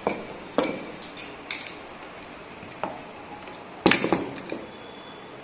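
Heavy metal air impact wrenches being handled and set down on a concrete floor: a string of separate metallic clunks and clinks, the loudest a double knock about four seconds in.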